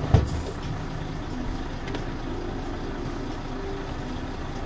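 Vehicle engine idling at a standstill, a steady low hum, with one sharp knock just after the start.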